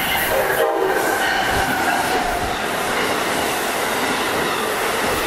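Amtrak passenger train hauled by an ACS-64 electric locomotive passing at speed, its Amfleet coaches and wheels rushing by in a steady loud roar. A high whine sinks slightly in pitch over the first few seconds.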